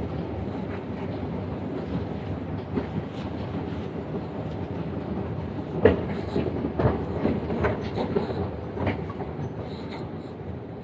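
Doha Metro underground train running, a steady rumble with a run of sharp clicks and knocks from the wheels about six to nine seconds in.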